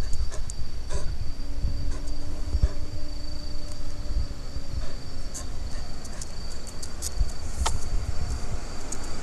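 Crickets singing at night, one steady high trill held throughout. Scattered soft clicks and rustles, and a faint low hum for a few seconds in the middle.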